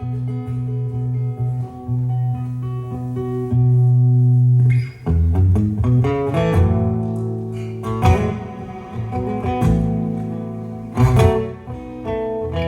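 Guitar playing the instrumental opening of a song live, with no singing: held low notes for about five seconds, then strummed chords with strong strokes.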